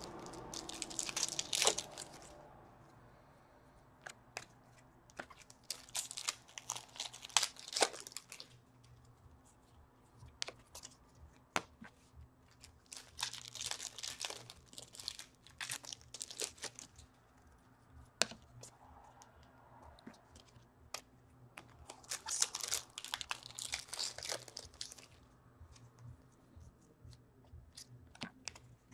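Hockey card packs being torn open and their wrappers crinkled, in four spells of tearing and rustling a few seconds apart, with light clicks of cards being handled in between.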